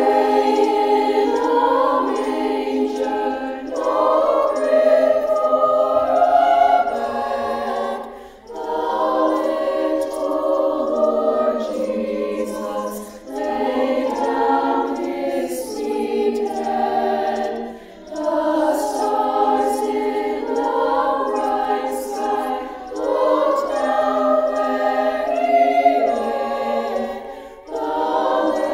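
High school choir singing a piece in several phrases of about four to five seconds each, with short breaks between them.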